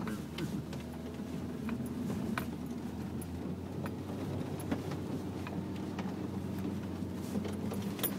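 Cabin noise of a Dacia Duster 4x4 driving slowly over a muddy, rutted dirt track: a steady low engine and tyre drone, with scattered clicks and rattles.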